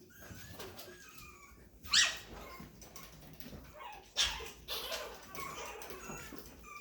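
Chihuahua puppies yipping and whining as they scuffle together: two sharp yelps about two and four seconds in, with fainter squeaks and whimpers between.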